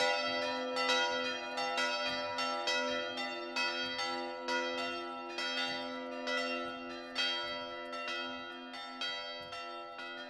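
Church bells ringing, a new stroke about once a second, the ringing tones overlapping and hanging on between strokes; the sound gradually gets quieter.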